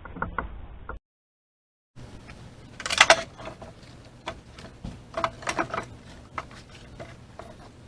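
Split firewood being stacked: a run of irregular wooden clunks and knocks as pieces are set down on each other, the loudest cluster about three seconds in, after a second of dead silence at an edit.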